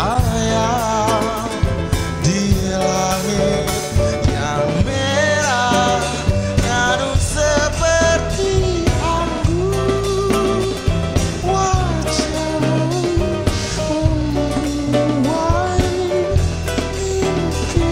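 Live band music: a male voice singing a gliding melody in Indonesian over a small nylon-string guitar, upright bass and drum kit.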